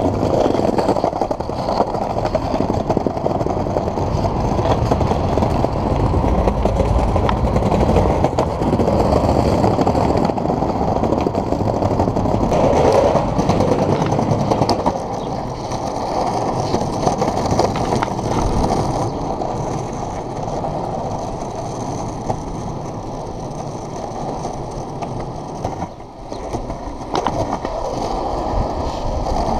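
Globe Big Blazer cruiser skateboard rolling along a sidewalk of paving slabs, its wheels rumbling with repeated clicks over the slab joints. From about halfway through it runs smoother and quieter.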